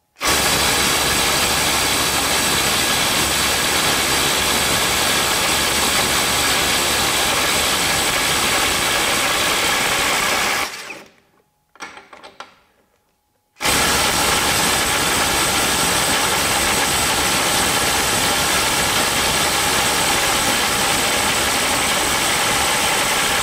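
Ryobi ONE+ HP brushless 18 V impact driver hammering continuously at full trigger against heavily torqued nuts, trying to break them loose. Two runs of about ten seconds each, with a short stop near the middle.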